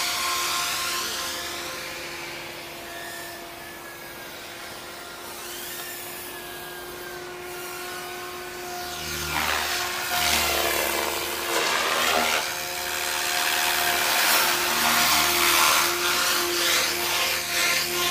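Motors and ducted props of a small 2S brushless FPV whoop drone (Eachine Novice-I 75) in flight: a buzzing whine that rises and falls in pitch with throttle. It grows louder from about nine seconds in as the drone sweeps close past.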